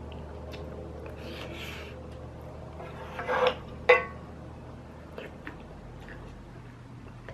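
Eating stew with a wooden spoon from a heavy pot: a breathy slurp about a second in, then the spoon scraping and knocking against the pot a little after three seconds, the knock ringing briefly. Soft chewing and mouth clicks follow.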